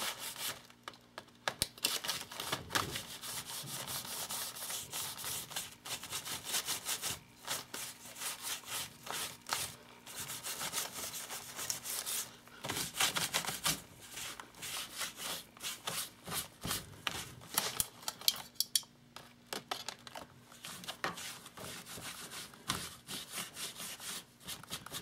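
A baby wipe rubbed back and forth over a painted paper journal page, wiping off still-wet teal paint, in a quick run of short rubbing strokes.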